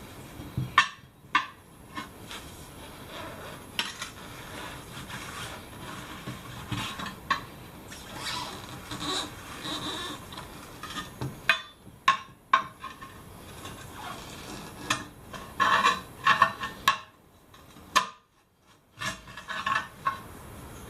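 Steel tyre levers clinking and scraping against a rusty steel wheel rim while prying an old, stuck tyre bead off it: irregular metallic clanks and scrapes with a few short pauses.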